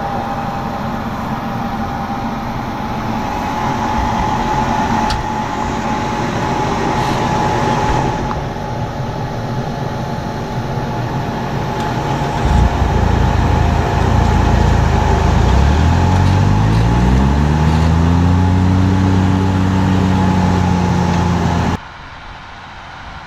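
Tractor engine running under a steady whine. About halfway through the engine note gets louder and its pitch rises over several seconds, then holds steady, before the sound cuts off abruptly near the end.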